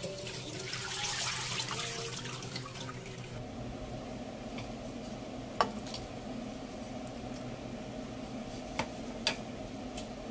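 Tap water running and splashing over taro leaves in a plastic colander for about the first three seconds. Then a steady low hum with three sharp knocks as raw pork pieces are pushed about in a pan, the first knock the loudest.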